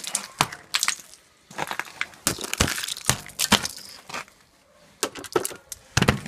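A hammer striking and breaking thick ice off a motorcycle's frame and exhaust pipe: irregular sharp blows with the ice cracking and crunching and chunks clattering off, pausing briefly a little past the middle.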